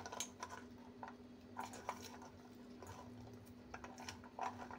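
Hands squeezing and separating thin-sliced raw onion in a stainless steel bowl: faint, irregular crisp rustles and light clicks of onion and fingers against the steel.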